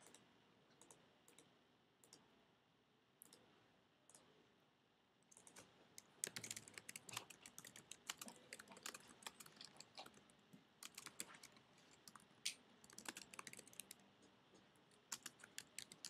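Quiet room with a run of faint, irregular clicks and taps from the table, starting about five seconds in.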